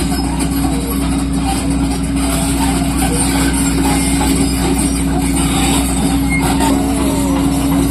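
Heavy diesel engine of quarry machinery running steadily at constant speed, with a steady hum and no revving.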